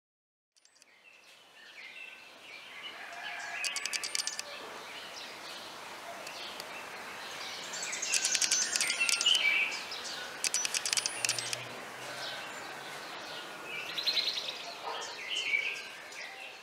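Outdoor ambience of several birds chirping and calling over a steady hiss, with repeated bursts of rapid high-pitched trilling. It fades in during the first second.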